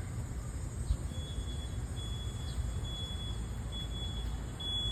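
Steady low street-traffic rumble with cicadas droning in the trees. From about a second in, a thin high tone sounds on and off, roughly half a second at a time.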